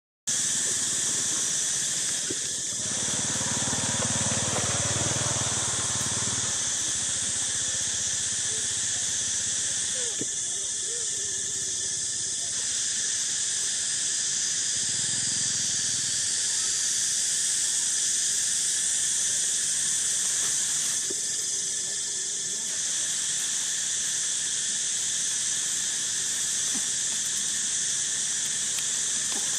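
Steady high-pitched drone of a forest insect chorus, unbroken throughout.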